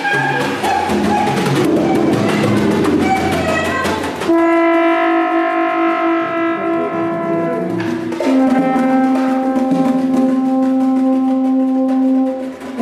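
Ensemble of flutes and brass playing live under a conductor. It opens with a busy passage of quick notes and sharp accents. About four seconds in it settles onto a sustained chord, which shifts to another held chord a little past eight seconds.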